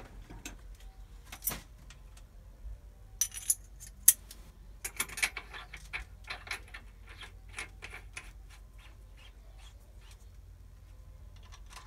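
Metal clinks and clicks of tools and parts being handled at a small metal lathe, with a few sharper clinks between about three and five seconds in, then a run of lighter ticks.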